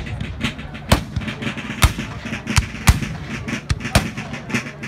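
Scattered black-powder gunfire from Civil War reenactors: sharp single shots about a second apart, the loudest about two and three seconds in and again near the end.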